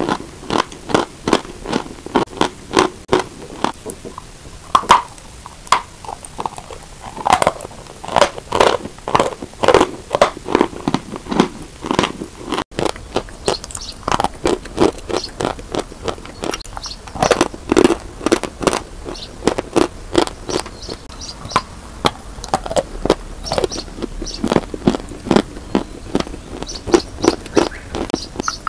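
Lumps of white chalk being bitten and chewed: a fast, loud run of crunches. A brief gap about twelve seconds in.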